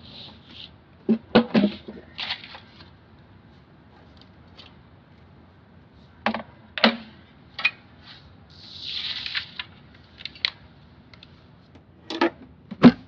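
A manual typewriter being handled and packed into its hard carrying case: scattered clunks and clicks as it is moved and set down, a brief scraping rustle about two-thirds of the way through, then several sharp clicks near the end as the case lid is shut.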